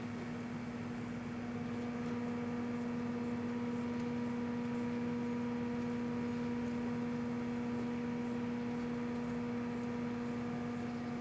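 Microwave oven running: a steady electrical hum over the whir of its fan, rising slightly about two seconds in.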